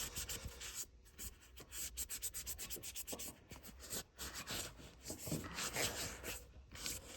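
Hand scrubbing of a metal air tool's body to clean off rust and dust: runs of quick rubbing strokes with brief pauses.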